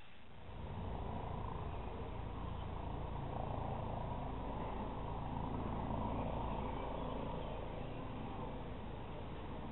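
Helicopter flying overhead at a distance: a steady low drone of rotor and engine that comes in about half a second in, swells slightly and eases off a little near the end.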